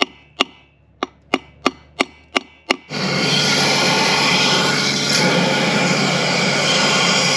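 A hammer striking a chisel against the steel front wheel hub of a Massey Ferguson 35, about eight sharp metallic knocks that drive out the worn-out wheel bearing. About three seconds in, a pressure washer starts up with a loud, steady hissing spray, blasting the hub clean.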